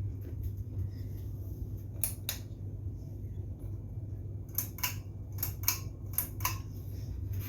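Harbor Breeze Centerville ceiling fan running with a steady low hum, with several pairs of light clicks through the middle.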